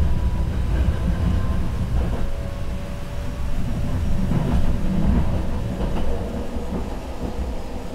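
Tram running along street track, heard from inside the car: a steady low rumble of wheels on rail with a faint whine from the drive, easing off slightly toward the end.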